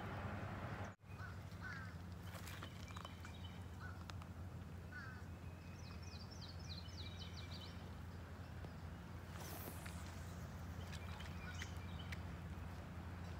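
Quiet outdoor ambience with birds calling now and then: short chirps, and a quick run of high chirps in the middle, over a steady low hum. The sound cuts out for a moment about a second in.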